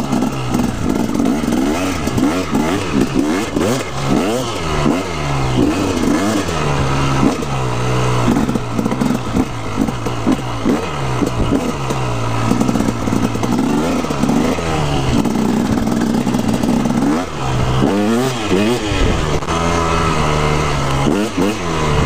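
2016 KTM 250SX two-stroke single-cylinder engine being ridden hard off-road, revving up and dropping back over and over as the throttle is opened and shut.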